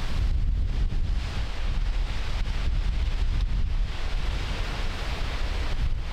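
Strong gusting wind buffeting the microphone, a heavy low rumble that swells and eases with the gusts.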